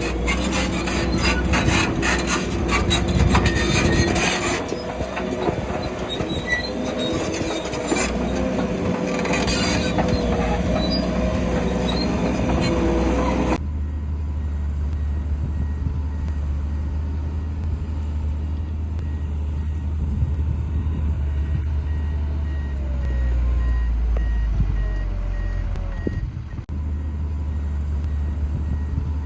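Heavy earthmoving machinery at work: diesel engine running under dense clattering and clanking from tracks and rock. About halfway through it cuts abruptly to a steady low diesel rumble, with a faint repeated beeping like a reversing alarm later on.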